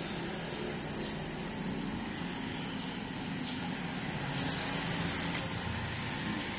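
Steady low rumble and hiss of background traffic.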